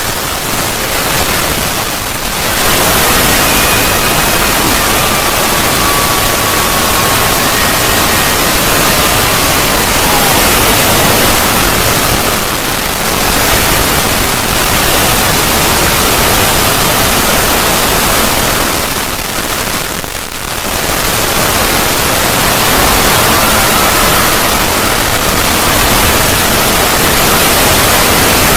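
Void sound effect: a loud, dense hiss like static that dips briefly a few times, deepest about two-thirds of the way through. A faint thin tone drifts slowly downward about a quarter of the way in.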